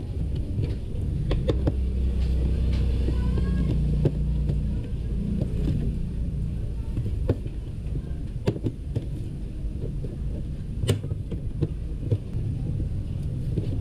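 Plastic access cover being pressed and fitted into a scooter's side panel: scattered light clicks and knocks, the sharpest about three quarters of the way through, over a steady low rumble that is heavier in the first few seconds.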